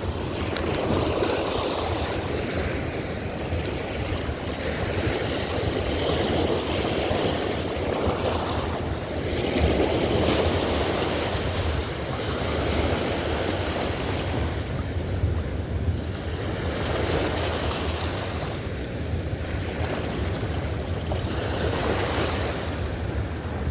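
Fast river current rushing past the bank, a steady wash that swells and eases every few seconds over a low constant rumble; the current is running rough.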